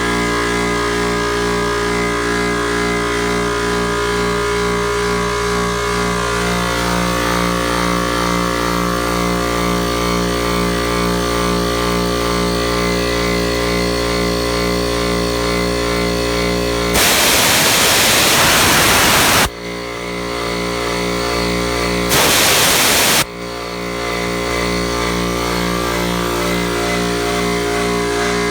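Vintage Tornado/Kidde high-pressure air compressor running steadily with a fast, even pulse. Twice, about 17 seconds in for two or three seconds and again about 22 seconds in for about a second, a loud hiss of compressed air blows off, as when the filter towers are drained, and the running sound dips and builds back after each.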